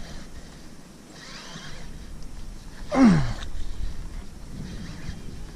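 A person's short groan, falling in pitch, about three seconds in, over a steady low rumble of outdoor background noise.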